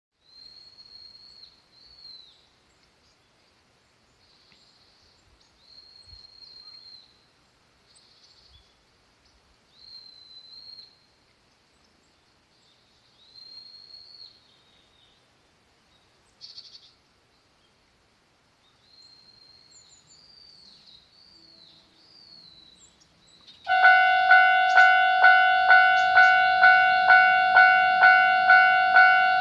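A songbird sings short whistled phrases every few seconds in a quiet rural setting. About 24 seconds in, a railroad crossing alarm starts: a loud, ringing electronic bell striking about twice a second, warning of an approaching train.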